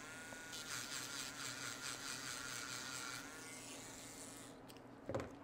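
Small handheld electric grinding pen (Mant D1) whirring with a thin whine. It spins up at the start and dies away about four and a half seconds in.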